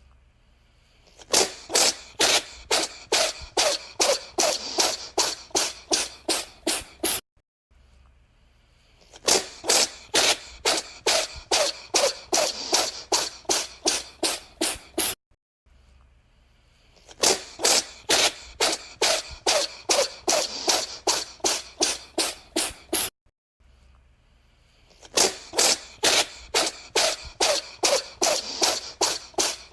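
A cat with a runny nose sneezing over and over: four runs of quick, sharp sneezes, about three a second, each run lasting around six seconds with short pauses between them.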